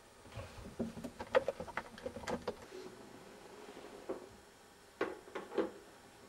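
Light clicks and knocks of objects being handled: a quick run of them in the first couple of seconds, then a few more scattered near the end.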